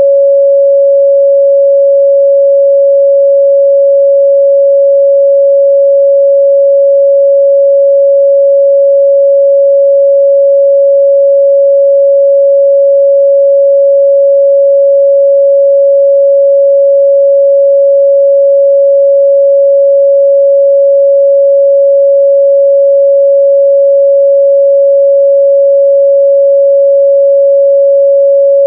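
A steady, loud 557 Hz sine-wave test tone, one pure pitch held without a break.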